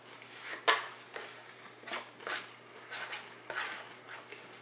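Eating nachos: a series of short, irregular crunches and clicks from tortilla chips being bitten and handled, the sharpest one near the start.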